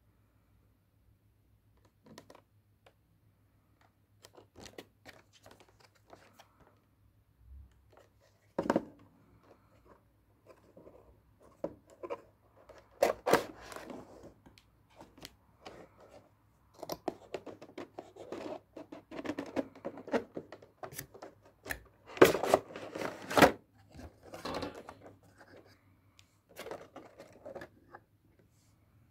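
A cardboard product box being opened and handled: scattered scrapes, taps and rustles of the box flaps and a clear plastic insert tray, busiest and loudest a little past two-thirds of the way through.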